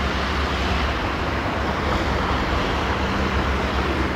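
Diesel locomotive, a Class 66 'Jimmy', running with a steady low engine rumble that does not rise or fall.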